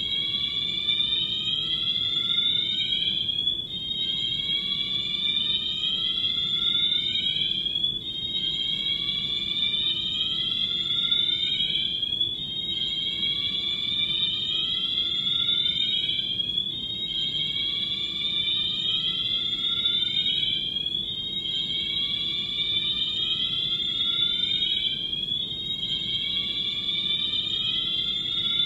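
Building fire alarm sirens sounding a repeating slow rising whoop during a fire alarm test. Each sweep climbs in pitch over about four seconds and then starts again, with overlapping sweeps slightly out of step.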